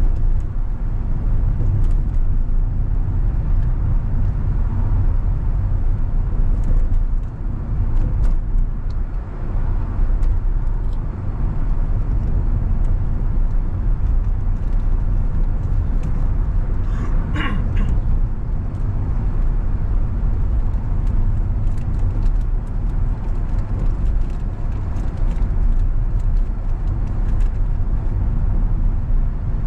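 Car driving at around 25 mph, heard from inside the cabin: a steady low rumble of engine and tyres on the road. A short higher-pitched tone comes briefly about halfway through.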